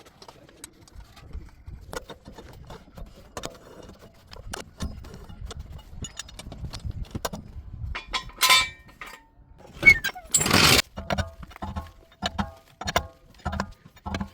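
Metal-on-metal clinks and knocks of tools and parts being worked on a car's rear wheel hub, some strikes ringing briefly, with a loud ringing strike past the middle and a short burst of noise soon after.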